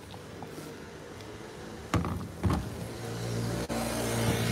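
Motor vehicle engine running with a steady low hum that grows louder through the second half, after two short knocks about two seconds in.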